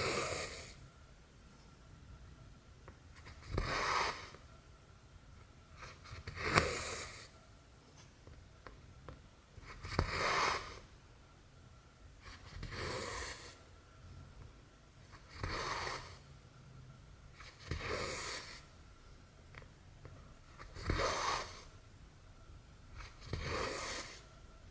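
Cotton embroidery thread being pulled through cross-stitch fabric, a soft rasping swish with each stitch, about every two and a half to three seconds.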